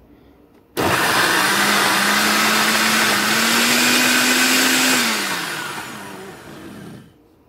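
Hamilton Beach smoothie blender with a 650-watt motor spinning its steel blades through a jar of red icy drink. It starts about a second in, runs steadily for about four seconds, then winds down with a falling hum once switched off.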